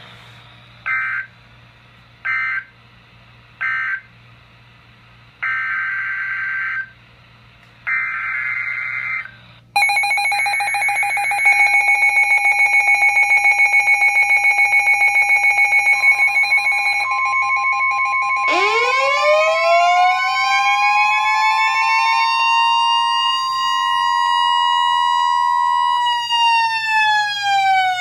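Emergency Alert System sequence on NOAA Weather Radio. It opens with three short screechy digital data bursts and then two longer ones: the coded end-of-message and header tones for a new Special Marine Warning. The weather radios then go into alarm: a pulsing, beeping alert tone, a steady NWR attention tone joining partway through, and a siren-style wail that sweeps up, holds, and begins to fall near the end.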